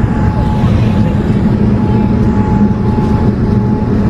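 Steady cabin noise inside a Boeing 787-8 Dreamliner in flight on its approach: a low rumble of engines and rushing air, with a thin high hum that drops out and comes back.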